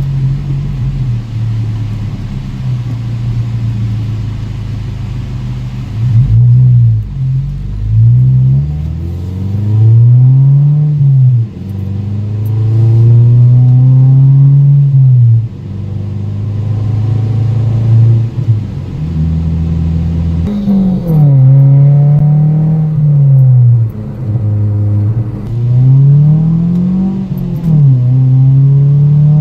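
Ford Focus engine heard from inside the cabin during a drive. Its note climbs and falls back again and again as the car accelerates and eases off, with a low cabin drone underneath.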